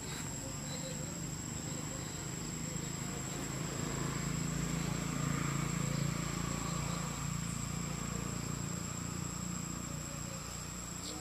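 Forest insects droning in one steady high-pitched tone, with a low rumble underneath that swells about four seconds in and fades again.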